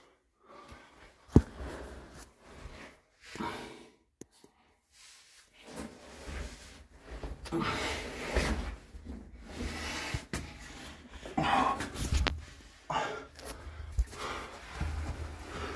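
A person breathing hard and scraping over rock while crawling through a tight cave passage, in irregular noisy bursts. A sharp knock comes about a second in, and a few lighter knocks follow later.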